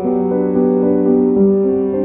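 Instrumental background music led by piano, with held notes that change every fraction of a second.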